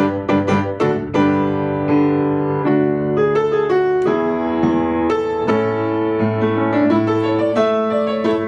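Background piano music: sustained chords and a slow melody, with quicker struck notes returning near the end.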